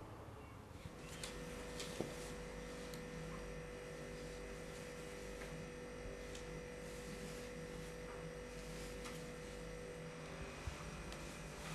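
A steady electrical hum with a few fixed tones sets in about a second in, with a few faint clicks and knocks over it.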